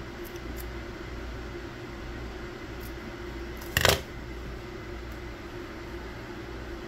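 Scissors snipping the frayed end of an oil-lamp wick: one short, sharp cut about four seconds in, with a few faint clicks of handling before it, over a steady low background hum.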